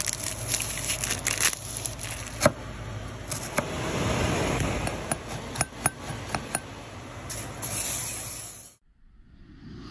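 Kitchen handling noises: a string of sharp clicks and light clinks over a steady rustle, cutting off suddenly near the end.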